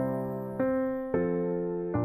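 Background music: soft piano chords, a new chord struck three times, each fading slowly into the next.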